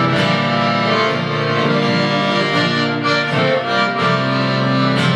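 Accordion playing a tune in held, sustained notes and chords, with an acoustic guitar accompanying it in an instrumental passage.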